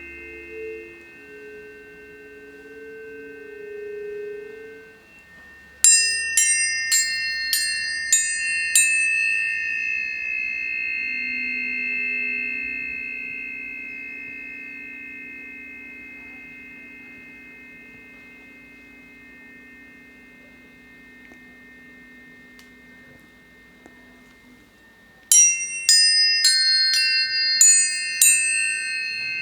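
Planetary tuning forks struck in two quick runs of about six strikes each, a second or more apart in time of runs, each strike a bright metallic ting that leaves overlapping high ringing tones. Between the runs the tones fade slowly, with lower, steady fork tones underneath.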